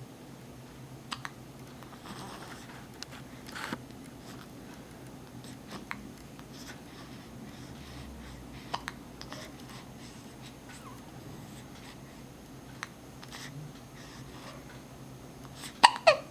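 A pet hiccuping: short, sharp hiccups every two to four seconds, with a louder pair of sounds just before the end.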